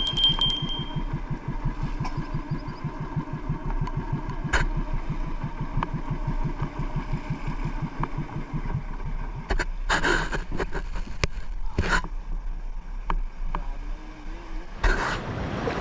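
Engine of a small motorized banca boat running with a steady rapid beat. A few knocks and a clatter come about ten and twelve seconds in, and the engine beat fades in the last few seconds.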